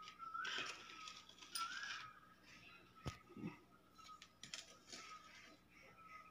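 A metal spoon scraping powder off a plastic plate and tapping against a glass jug of water. There are faint scrapes in the first two seconds, a sharp clink about three seconds in, and a few lighter clicks after.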